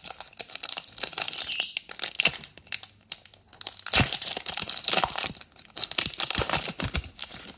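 Foil Pokémon booster pack wrapper being torn open and crinkled by hand: dense crackling rustle of the foil, with a short pause about three seconds in.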